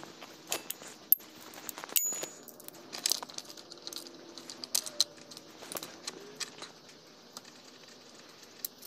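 Irregular metallic clicks and clinks of a hand tool on a 10 mm mounting nut as it is worked off the secondary air injection pump of a VW 1.8T engine.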